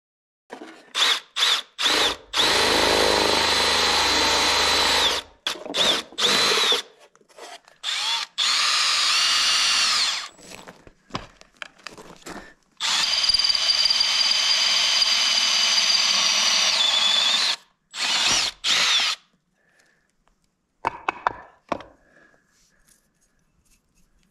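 Cordless drill running in several trigger-held runs of a few seconds each, its motor whine rising and shifting in pitch as it drills through a metal bar and into a wooden board, with short on-off blips between the runs. Near the end there are only a few faint knocks.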